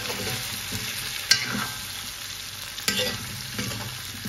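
Cubes of arrowleaf elephant ear frying in oil in a metal wok, sizzling steadily while a metal spoon stirs and scrapes through them. The spoon knocks sharply against the pan twice, about a second and a half in and again about three seconds in.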